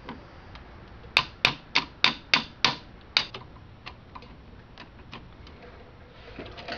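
Diagonal cutters clicking against the steel C-clip and pin of a drum brake shoe as the clip is worked back on and clamped down. There are about seven sharp metallic clicks at roughly three a second, then fainter, scattered ticks.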